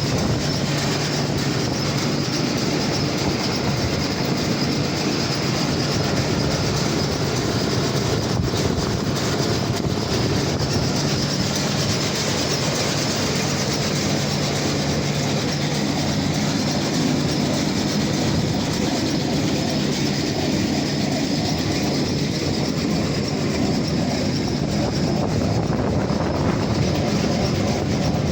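Krone BigPack 1290 large square baler, making 3x4 bales, running behind a tractor: a steady mechanical clatter over the tractor's engine drone.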